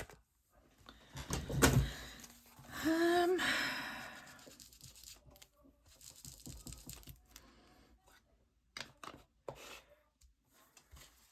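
Paper and craft materials being handled and rummaged through: rustling and short taps, with a louder sharp rustle about two seconds in and a longer, louder tearing-like scrape about three seconds in.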